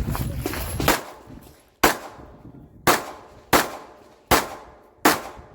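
Six shots from a 9 mm Glock 26 subcompact pistol, spaced about three-quarters of a second to a second apart, each with a short trailing echo. They follow a second of rustling movement noise.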